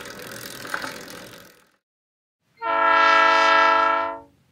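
Train horn sounding one long, steady blast from just over halfway in. Before it, a quieter whirring hiss with faint clicks, the bicycle-wheel sound effect, fades out.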